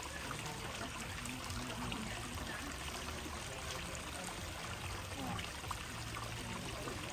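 Steady trickle and splash of water running into a backyard garden pond.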